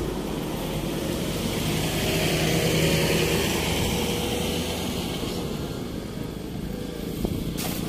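Road traffic going past: engine and tyre noise that swells over the first few seconds and then fades, with a brief burst of noise near the end.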